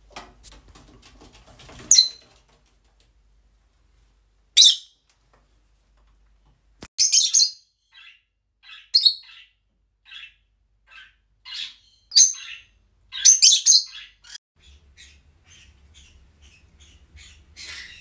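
Small pet parrots squawking and chirping: a string of sharp, high calls at irregular intervals with softer chirps in between, the loudest cluster about thirteen seconds in.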